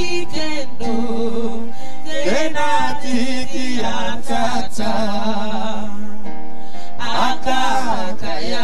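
Church worship music: a voice singing and chanting over steady held chords.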